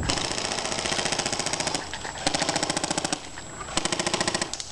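Airsoft gun firing on full auto in three bursts with a rapid, even rattle: one long burst, then two shorter ones.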